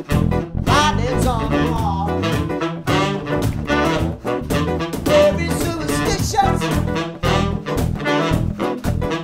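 Small live band playing an upbeat swing-style groove with a steady beat: electric guitar, bass guitar and cajón, with saxophone and trumpet lines over the top.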